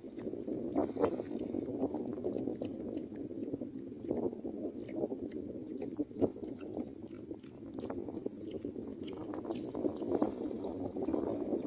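Strong wind gusting and buffeting, with foliage rustling and scattered small clicks and crackles.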